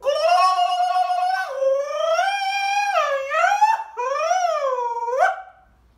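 A man's voice imitating a peacock's mating call through cupped hands. It is a loud, high, drawn-out call that holds level for about a second and a half, then slides up and down, breaks briefly about four seconds in, and ends on a last rise and fall.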